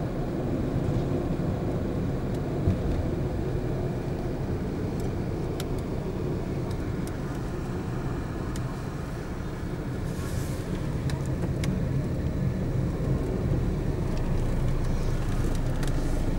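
Steady engine and tyre noise of a car driving at low speed, heard from inside the cabin, with a few small clicks and rattles scattered through.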